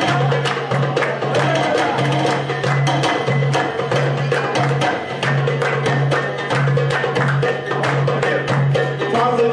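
Live band playing lively instrumental Iraqi Turkmen folk dance music: an oud over fast, regular drum strikes and a pulsing low note.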